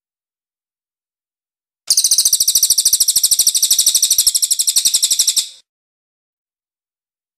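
Crested jay (cililin) giving one long, rapid, high-pitched rattling trill that starts about two seconds in, runs for about three and a half seconds and fades out, with silence before and after.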